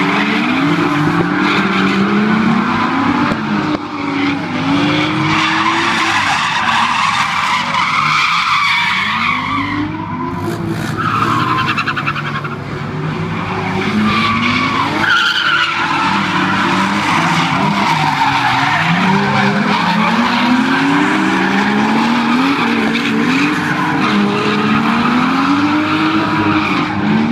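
Drift cars' engines revving hard, rising and falling again and again, with tyres squealing as the cars slide sideways. More than one car is heard at once.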